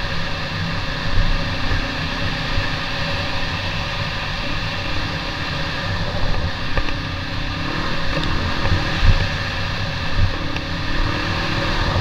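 Trail motorcycle engine running steadily as the bike rides along a rough track, heard from a bike-mounted camera, with wind noise on the microphone and a few knocks from bumps. The engine note rises and falls a little from about four seconds in.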